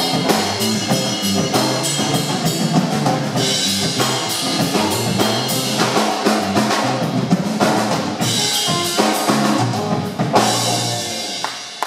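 Live instrumental rock trio of drum kit, electric bass and electric guitar playing a loud, driving jam. About ten seconds in the band ends on a final hit that rings out and fades.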